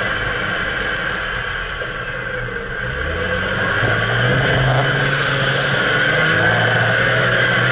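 Jeep Wrangler Rubicon driving on sand, heard from under the front axle: the engine runs steadily, its note dipping and climbing a few times, over a constant hiss of tyre and driveline noise.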